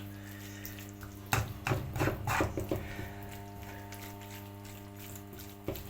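A few knocks and scrapes of a utensil against a cooking pan as rice is tipped in, over a steady low electrical hum.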